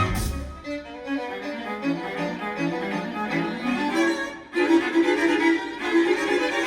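Recorded music with bowed strings, played back through a Yamaha R-N800A receiver and KEF Q Concerto bookshelf speakers in a room. The deep bass drops out at the start, leaving quick, short string notes, with a brief pause about four and a half seconds in.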